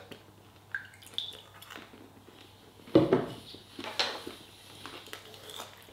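Quiet knocks and clinks of things being handled and set down on a table, a glass beer bottle among them, with two sharper knocks about three and four seconds in.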